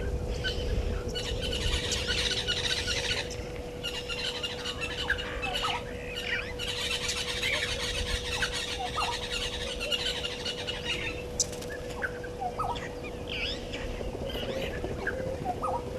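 Wild birds calling in the bush: a busy chorus of short chirps, trills and rising whistles, thickest near the start and again mid-way, over a steady low hum.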